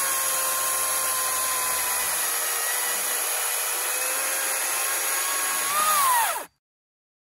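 Makita XGT 40V cordless 18-inch chainsaw (GCU06) cutting through a log: a steady electric motor whine over the rasp of the chain in the wood. Its pitch sags slightly under load, rises briefly as the chain breaks free near the end, and the sound cuts off suddenly about six and a half seconds in.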